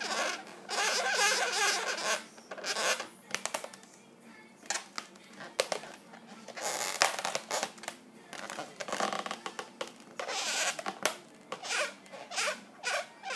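Latex modelling balloons squeaking and rubbing against each other as they are handled, with a felt-tip marker squeaking across the balloon surface, in irregular short bursts.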